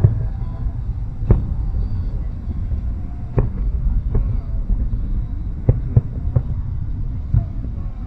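Fireworks bursting: about eight sharp bangs at uneven intervals over a steady low rumble.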